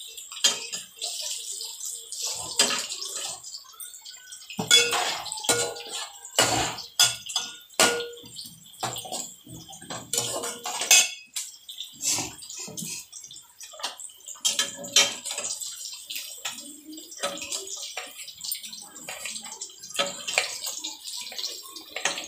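Fish pieces shallow-frying in oil in a kadai, nearly done: steady sizzling with frequent sharp pops and crackles, and a metal spatula clinking and scraping against the pan.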